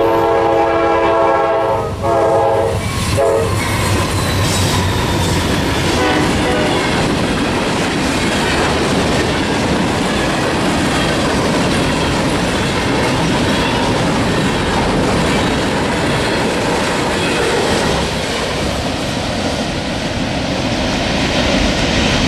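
Horn of a Norfolk Southern GE Dash 9-40CW locomotive, a five-chime Nathan K5LA, sounding a long blast that cuts off about two seconds in, with a short toot about a second later. After that comes the steady rumble and clickety-clack of a freight train of gondola cars rolling past.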